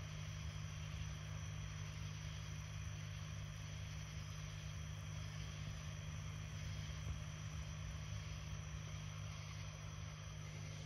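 Steady low machine hum, even and unchanging, with a faint hiss over it.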